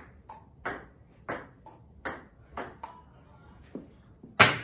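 Table tennis rally: a plastic ball clicking off paddles and the table, a sharp tock roughly every half second, with a louder knock near the end.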